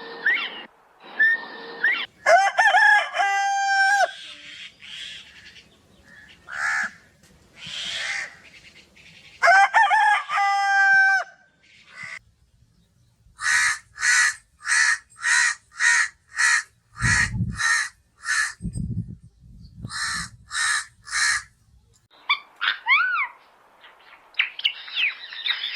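A rooster crowing twice, each a long call ending on a held note, followed by a run of short chicken calls repeated about twice a second, and high chirping calls near the end.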